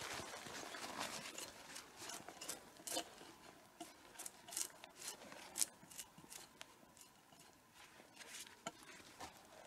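Hatchet scraping and chopping at the lower end of a log being debarked: irregular sharp knocks and scrapes, faint and unevenly spaced.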